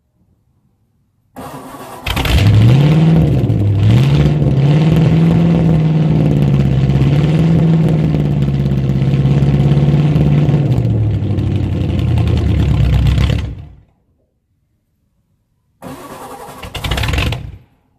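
Straight-piped stock 302 V8 of a 1982 Ford Mustang GT cranking and firing on a cold start. It revs up twice, holds a steady high idle, then drops and cuts off. Near the end a second crank fires briefly and cuts out.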